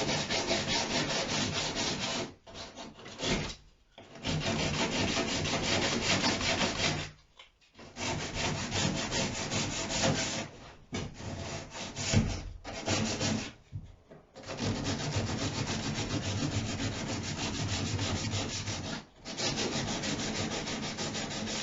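Hand sanding on a wooden boat hull with sandpaper: scratchy back-and-forth strokes in runs of a few seconds, broken by short pauses.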